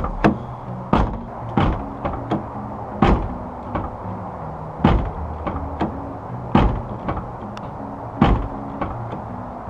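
Nissan 350Z door handle and latch being worked, with the car door knocking open and shut again and again: about a dozen sharp clicks and knocks at irregular intervals. The handle works again after a repair.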